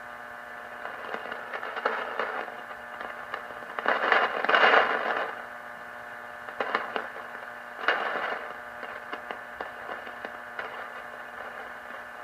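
Lightning static crashes heard on a Realistic DX-160 receiver tuned to the long wave band near 200 kHz: a steady hiss with scattered crackles, and louder crackling bursts about four seconds in and again near eight seconds. Noise like this is the sign of thunderstorms approaching from far off.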